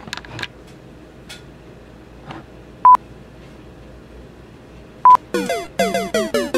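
Short, loud, steady electronic beeps at one fixed pitch, three of them about two seconds apart. From about five seconds in comes a quick run of electronic tones, each sliding down in pitch, one after another.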